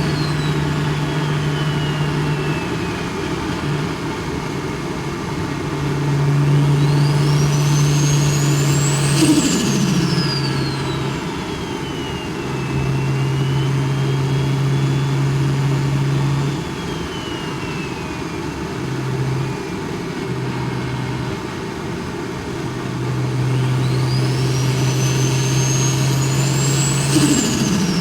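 BMW N54 inline-six with a big single turbo under two hard pulls: the turbo whine climbs high as it spools, then drops away as the throttle closes and the revs fall, with a short burst of turbo flutter at each lift.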